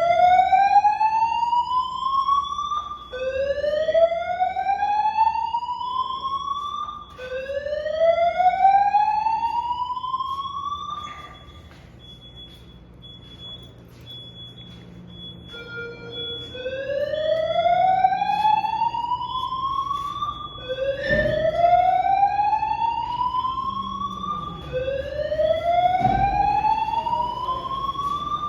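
Building fire alarm sounding its evacuation tone, a slow whoop that rises in pitch over about four seconds and repeats. Three whoops in a row, a pause of about four seconds, then three more, with a faint high beeping underneath.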